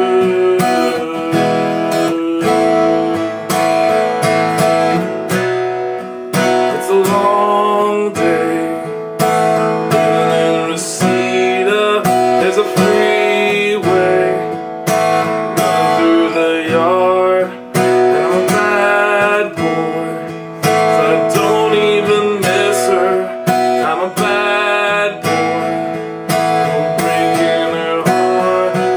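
Taylor GS Mini acoustic guitar strummed in a steady rhythm, heard unamplified straight from its body, with a man singing along.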